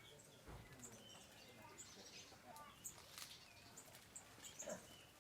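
Faint chirps and short call notes from several small birds, scattered irregularly, with a few soft clicks.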